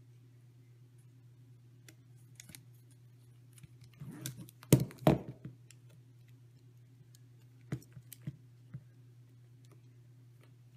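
Small clicks and taps of screws, nylock nuts and carbon-fibre quadcopter arms and plates being handled and fitted together, with a cluster of louder sharp clacks about five seconds in. A steady low hum underneath.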